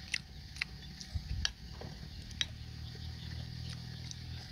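Metal cutlery clinking against a ceramic bowl while picking up noodles: four sharp clinks in the first two and a half seconds, then a couple of fainter ones, over a steady low hum.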